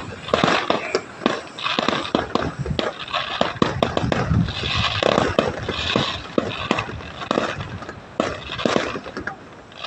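Fireworks and firecrackers going off: a dense, irregular run of bangs and crackling pops.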